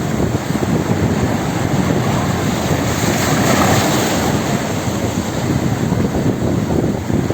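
Wind buffeting the microphone over a steady rush of sea and waves.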